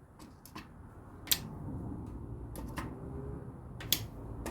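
Plastic LEGO pieces clicking as they are handled and pressed together, with two sharp clicks about a second in and near the end and a few lighter ticks between.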